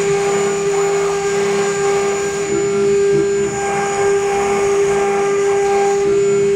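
Multi-head CNC router with Changsheng spindles running and engraving a board with fine bits: a steady, loud, high whine over the hiss of cutting.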